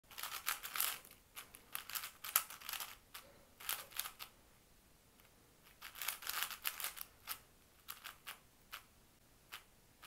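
Plastic 4x4 Rubik's cube having its layers turned by hand: quick runs of small clicks through the first four seconds and again around six to seven seconds in, then a few single clicks.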